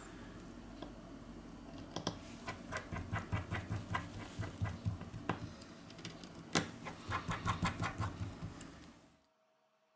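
Small metallic ticks and scraping of a precision Phillips screwdriver turning tiny screws in a phone's back frame, in runs of about three to four ticks a second with a few sharper clicks. The sound cuts off about nine seconds in.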